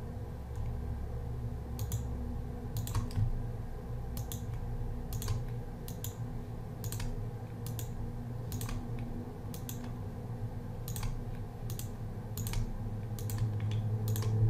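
Computer mouse clicking irregularly, one or two clicks a second and some in quick pairs, over a steady low hum.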